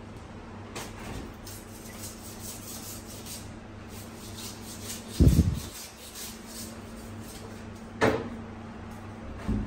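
Knocks and thuds of a fish being handled on a stainless-steel counter: one loud, low thump about five seconds in, then a sharper knock about eight seconds in and another just before the end, over a faint steady hum.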